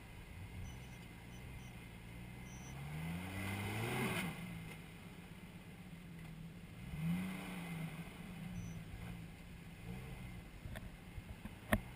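Jeep Cherokee XJ's engine revving up and dropping back as it crawls over a rock ledge, three rises in revs with the strongest about four seconds in. A single sharp knock just before the end.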